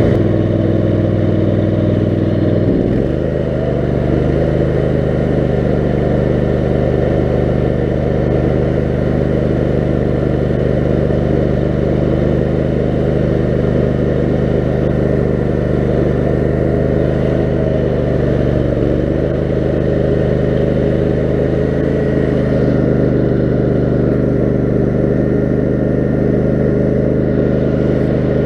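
Lawn mower's Kohler 18 HP Command engine running steadily under load as the mower is driven, its engine speed shifting a few times.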